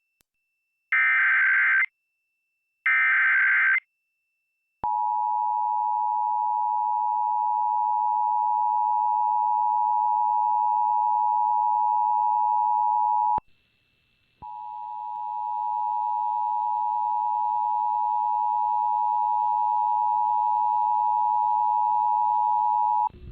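Emergency Alert System tones on FM radio. First come the short bursts of SAME header data, the end of one and then two more. Then comes the steady two-tone attention signal, which drops out for about a second midway and resumes. It is the alert signal that opens a child abduction (AMBER) alert.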